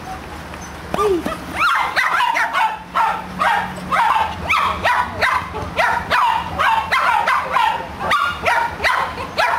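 A dog barking in short, high yips, each dropping in pitch, about two a second from about two seconds in.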